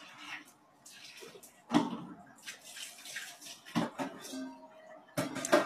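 A person eating close to a phone microphone: wet mouth noises, with sudden loud smacks or slurps about two seconds apart.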